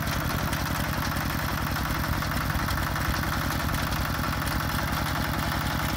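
Single-cylinder diesel engine of a small ride-on tractor converted from a walking tractor, idling steadily with evenly spaced firing pulses.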